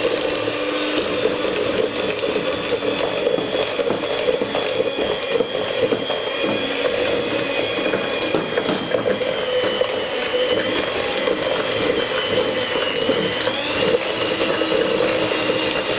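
Electric hand mixer running steadily with a thin high whine, its beaters whisking cake batter while flour, starch and baking powder are poured in and beaten into the creamed butter, sugar and eggs.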